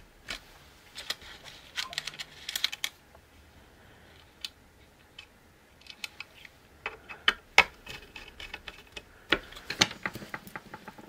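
Scattered small clicks and taps in irregular bunches as a small screwdriver works the screw terminals that clamp the robot's motor wires and wires and tools are handled on a wooden tabletop.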